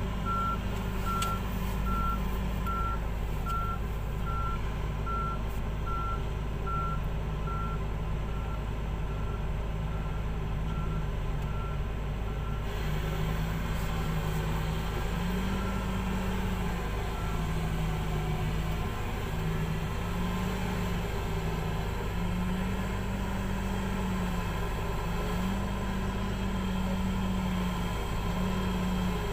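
Komatsu PC2000 hydraulic mining excavator's diesel engine running steadily, its note stepping up and down repeatedly in the second half as it works under load. A back-up alarm beeps evenly at the start and fades out about halfway.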